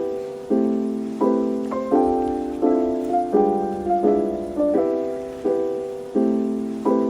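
Background music: a soft piano playing repeated chords, one struck about every 0.7 seconds and left to fade.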